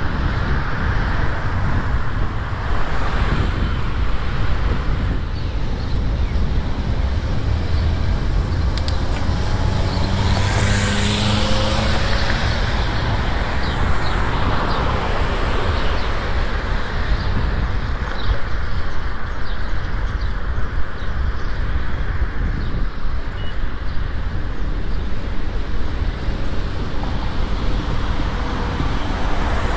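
Busy city street traffic heard from a bicycle: cars driving past steadily under a constant low rumble of wind on the microphone. One vehicle passes louder about ten seconds in, its engine note clearly heard.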